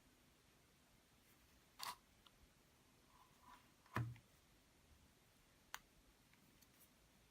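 Quiet handling of a phone and its packaging: three faint clicks, the loudest about four seconds in with a soft knock under it, as of a light object being set down or snapped into place.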